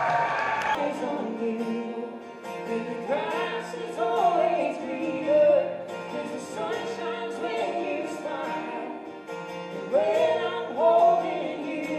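A song playing: a singing voice carrying a melody over sustained instrumental chords.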